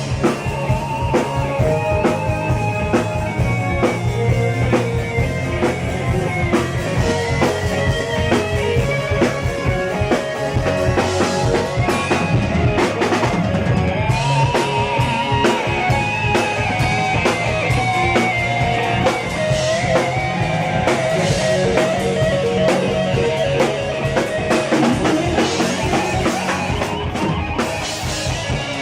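Live band playing an instrumental rock tune for a sound check: a drum kit keeping a steady beat under guitar and melodic lead lines.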